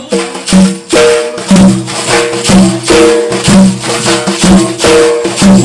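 Instrumental music between sung lines: a repeating melodic phrase of short held notes over a steady beat of sharp percussion hits.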